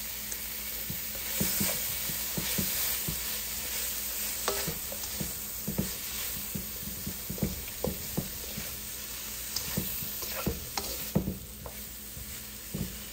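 Broccoli and bell pepper strips sizzling in butter in a hot wok while a slotted spatula stirs them, with irregular knocks and scrapes of the spatula against the pan over a steady sizzle.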